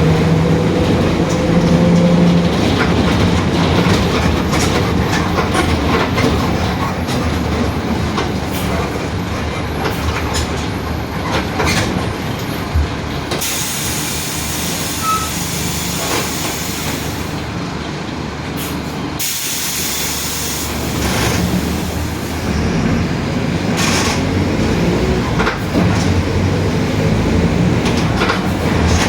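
Mercedes-Benz OF-1721 city bus under way: diesel engine running with a growling differential, its pitch rising as the bus gathers speed, over scattered rattles. About halfway through a hiss lasts several seconds.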